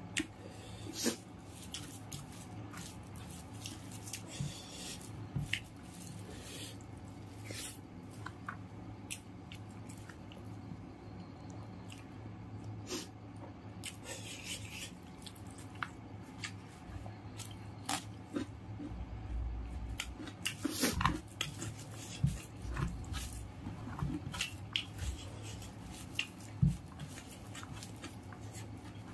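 Close-miked eating by hand: open-mouthed chewing and lip smacks as he eats rice and mutton intestine curry, with wet squishing of rice being mixed by fingers on a banana leaf. Scattered short clicks and smacks, thicker about two-thirds of the way through, over a steady low hum.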